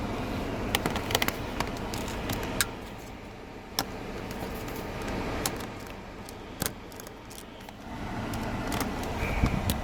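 Scattered sharp plastic clicks and light rattles as a car's dashboard trim panel and its wiring connectors are handled and fitted, over a steady low background hiss.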